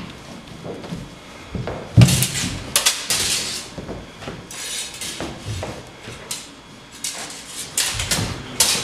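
Steel rapier and dagger blades clashing and scraping in quick, sharp strikes, mixed with foot stamps on a wooden floor. The loudest clash, with a heavy thud, comes about two seconds in, and a quick run of clashes comes near the end.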